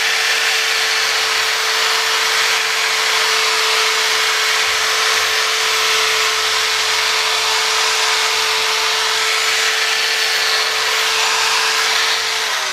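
Corded electric drill running steadily with a small sanding cone, grinding the powder coat off the spokes of a motorcycle wheel: a constant motor whine under a harsh sanding hiss. The motor starts to wind down at the very end.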